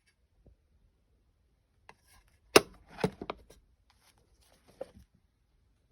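A few sharp knocks and clacks from handling the drawers of a 1940 Snap-on K260 steel tool chest: one loud knock about two and a half seconds in, a quick run of smaller ones just after, and one more near the end.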